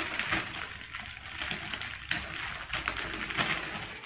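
Clear plastic packaging bag crinkling and rustling as it is handled, a continuous run of small crackles.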